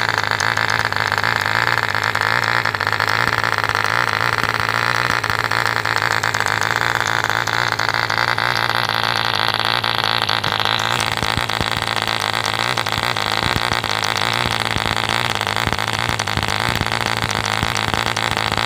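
1948 ED Mk II Competition 2 cc model diesel engine running steadily on a test stand, spinning its propeller with a high buzz. Its note shifts slightly about eleven seconds in.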